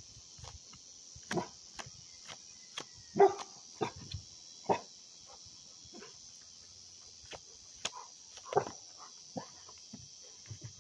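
A dog barking a few short times, loudest about three seconds in, over a steady high drone of insects.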